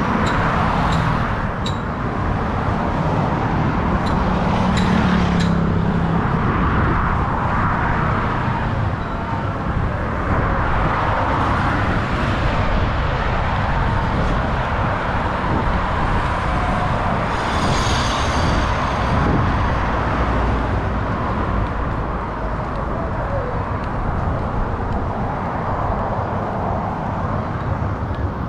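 Steady road traffic on a busy highway: cars and other vehicles driving past in a continuous stream.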